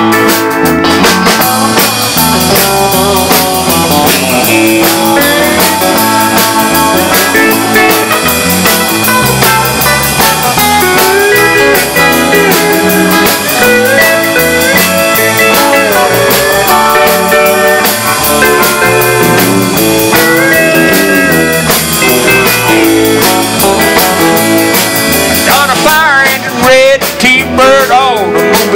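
Live country band playing an instrumental break: electric guitars, bass guitar and keyboard over a steady beat, with sliding notes near the end.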